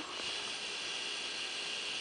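Steady hiss of rain falling, with no other clear event apart from a faint click about a quarter of a second in.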